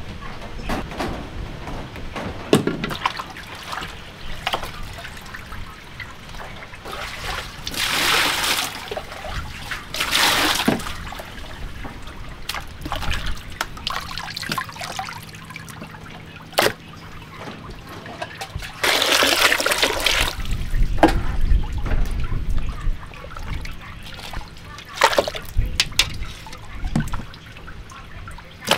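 Water splashing and trickling as pieces of goat leg and bone are washed and lifted out of a basin of water and put into an aluminium pot, in several short bursts with the longest about two-thirds of the way through, and a few sharp knocks in between.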